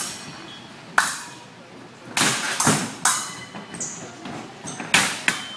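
Fencing bout: sharp stamps and slaps of fencers' shoes on the floor as they advance and lunge, with brief metallic clinks of blade contact, several in quick succession.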